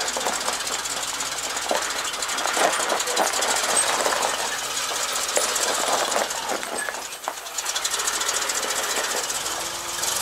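1981 GMC C7000 dump truck's engine running as the truck drives slowly forward over gravel, a fast, even rhythm, dipping briefly about seven seconds in.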